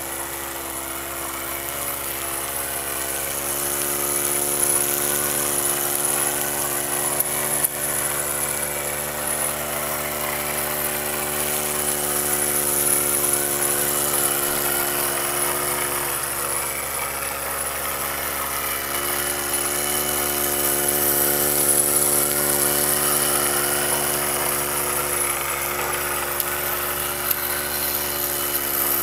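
Tiny model steam engine with a glass boiler running fast, giving a steady mechanical hum that holds one pitch throughout.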